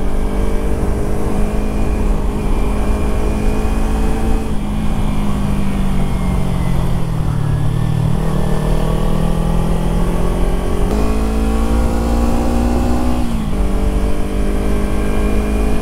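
Kawasaki Ninja 300 parallel-twin engine under way on a hill road. It holds steady revs, then eases off and falls in pitch. It then builds revs again in a long rising pull, and the revs drop quickly about thirteen seconds in.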